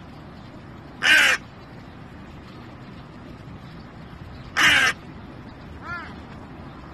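A crow cawing: two loud, harsh caws about three and a half seconds apart, then a fainter call near the end.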